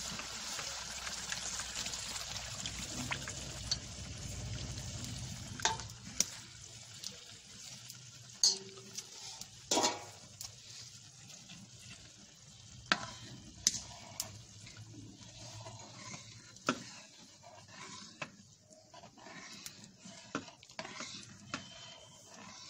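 Kadhi batter poured into a hot metal karahi, hissing and sizzling for the first few seconds, then a metal ladle stirring it with sharp clinks as it knocks against the pan.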